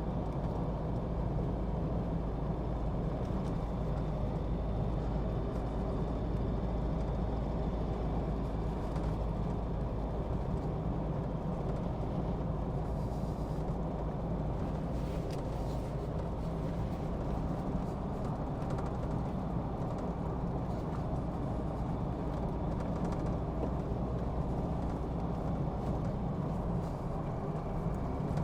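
Steady vehicle engine and road noise of a car being driven along at an even pace.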